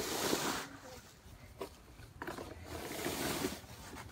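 Dry fallen leaves rustling and crunching in several uneven bursts.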